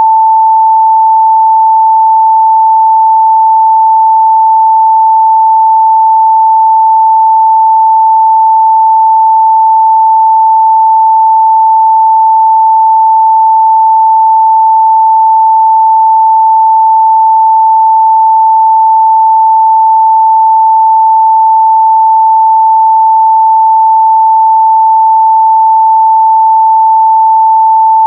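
Pure 885 Hz sine-wave test tone, held steady and loud at one unchanging pitch, with no other sound.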